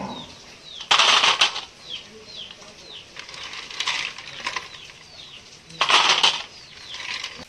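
Snail shells clattering against a steel plate in two short rattling bursts, about a second in and again near six seconds, as a hand stirs them. Small birds chirp repeatedly throughout with short falling chirps.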